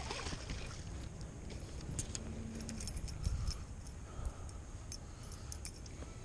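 Small sharp metallic clicks and rattles of fishing tackle being handled, a baitcasting reel and lure, coming in two clusters, with a dull thump partway through, over a steady low wind rumble on the microphone.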